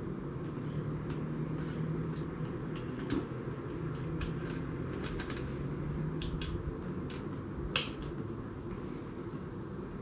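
Scattered light clicks and ticks of an Allen key and metal M4 screws being worked loose by hand, with one sharper click about three-quarters of the way through, over a steady low hum.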